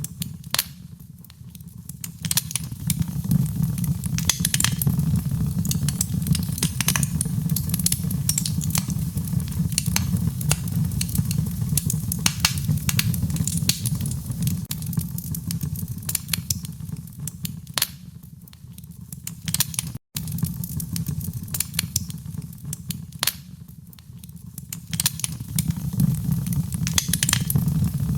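Wood fire crackling: irregular sharp pops and snaps over a steady low rumble of the flames, with a momentary break in the sound about two-thirds of the way through.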